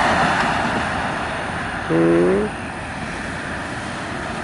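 Road traffic: a vehicle passes close by and fades over the first second or so, leaving a steady traffic hiss. About two seconds in, a brief low pitched hum lasting about half a second.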